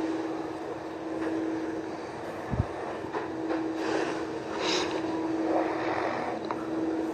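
A steady mechanical drone with a constant low hum under a hiss, with a few soft hissing swells and one short low thump about two and a half seconds in.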